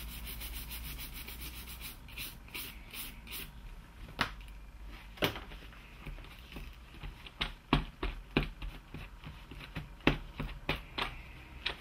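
A small brush scrubs quickly and rhythmically across a circuit board for about the first two seconds, cleaning off flux residue. After a few slower strokes, a cloth wipes the board in short, separate rubbing strokes.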